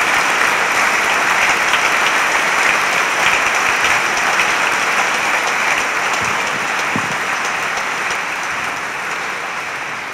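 A large audience applauding steadily, the clapping dying down toward the end.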